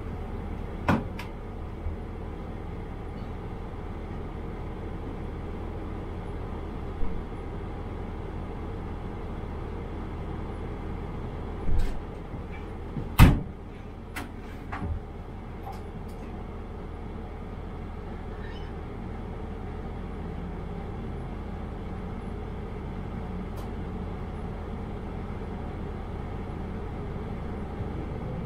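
Steady low hum of a diesel railcar standing at a station platform, heard from the driver's cab, with a few short knocks and clunks, the loudest about halfway through.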